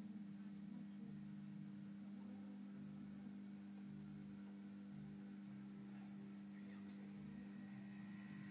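Faint, steady electrical mains hum from the model railway setup. Near the end a faint whine and a few light clicks come in as the OO gauge Class 08 model shunter nears the tunnel mouth.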